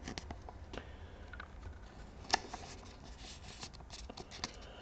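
Pokémon trading cards being handled: faint rustling and light clicks as cards are slid and flipped, with one sharper tap a little over two seconds in.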